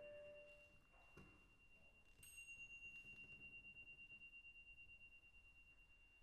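Very soft metallic percussion in a hushed passage of chamber music: a single high bell-like tone rings on, and a light strike about two seconds in adds a bright chime whose ring pulses as it fades.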